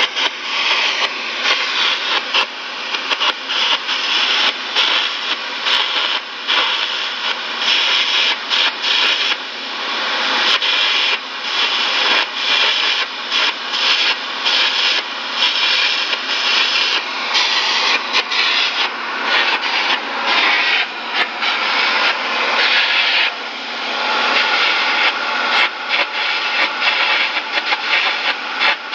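Air carbon arc gouging on steel: a loud, continuous crackling hiss of the arc and its compressed-air jet, with a few short dips.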